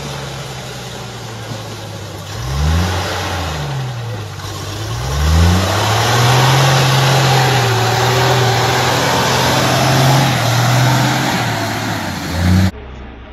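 Old heavy truck's engine labouring through deep mud, its revs rising and falling a couple of times, then held high under load. The sound cuts off suddenly near the end.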